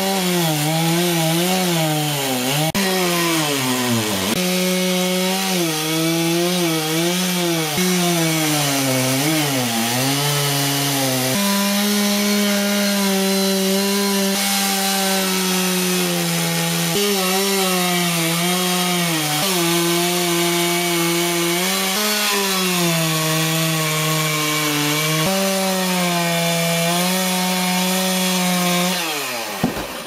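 Large two-stroke chainsaw cutting through a thick willow limb, the engine held at high revs throughout. Its pitch wavers and sags as the chain bites into the wood, jumps up and holds steadier a little before halfway, and falls away as the throttle is released just before the end.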